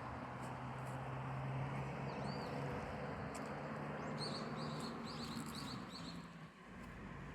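Steady rushing of river water, with a low engine hum running underneath that fades out about six seconds in. A small bird chirps a quick run of short calls about four seconds in.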